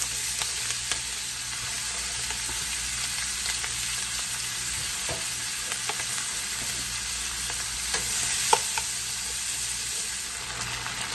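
Chopped onions and sweet peppers sizzling steadily in hot olive oil and butter in a wok as they are stir-fried, with a few light clicks scattered through.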